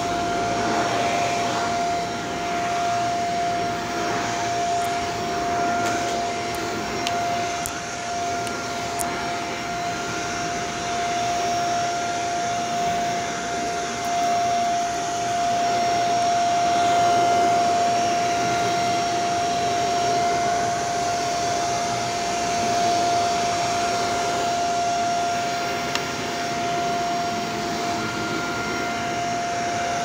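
Shark upright vacuum cleaner running steadily while pushed over carpet, a whine holding one steady pitch over the rush of air. A few light ticks come about five to nine seconds in.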